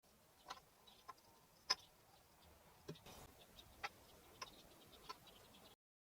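Faint, scattered light clicks and taps, about seven in six seconds, the sharpest a little under two seconds in, then a sudden cut to silence near the end.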